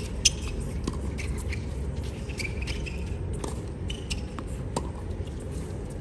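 Tennis doubles rally on a hard court: sharp pops of rackets hitting the ball, with shoe squeaks and scuffs on the court between them. The loudest hit comes about a quarter second in, over a steady low hum.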